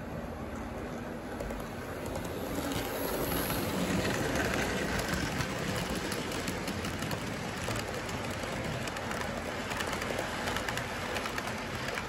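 Model train running past close by, its motor humming and its wagons' wheels rolling and clicking rapidly over the track joints. The sound swells a couple of seconds in and stays strong while the tank wagons pass.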